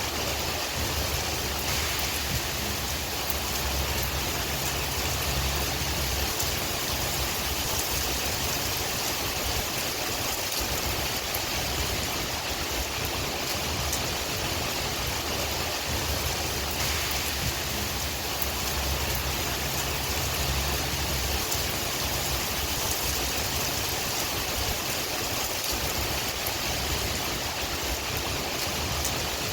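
Steady rain hiss with a low wind rumble underneath that swells and eases.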